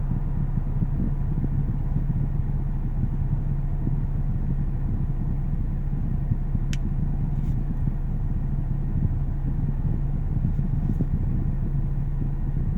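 Steady low background hum at an even level, with one faint click about two-thirds of the way through.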